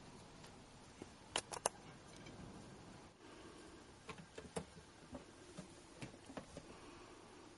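Kittens at play, heard as faint taps and clicks of paws and claws: three sharp clicks in quick succession about a second and a half in, then scattered softer taps in the second half.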